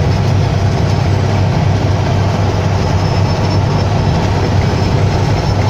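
Semi-truck cruising on the highway, heard from inside the cab: a steady low engine drone over an even rush of road noise.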